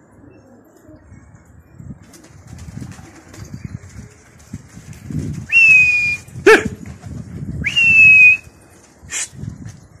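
A pigeon keeper's whistle to his flock in flight: two loud, long whistled notes, each a single high pitch that falls slightly, about two seconds apart. Two short, sharp yelps come between and after them, over a low rumble on the microphone.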